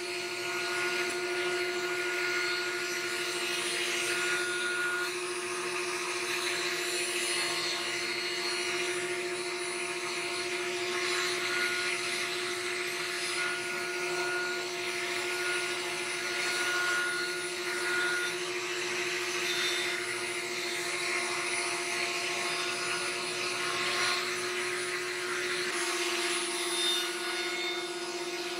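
Table-mounted router with a roundover bit running, a steady high motor whine, while hardwood cot parts are fed past the bit to round over their edges; the cutting hiss rises and falls a little as the wood passes.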